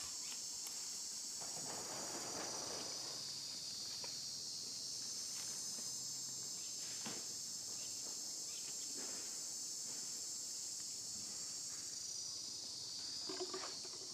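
Steady high-pitched chorus of insects, with a brief rustle about two seconds in and a few faint clicks and scuffs.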